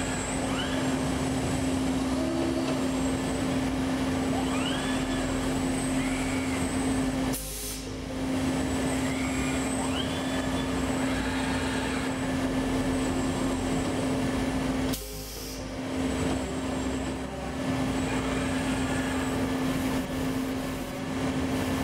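Steady machine hum of a CNC cell, over which the servo motors of a KUKA industrial robot arm whine up in pitch, hold and fall again as the arm moves, several times over. The hum breaks off briefly twice.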